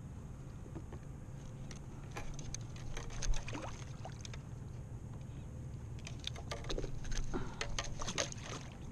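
Clicks, knocks and rattles of fishing gear handled on a plastic kayak: a landing net and pliers knocking against the hull and rod while a caught fish is dealt with. The handling comes in two bouts, one around three seconds in and a busier one in the second half, over a steady low hum.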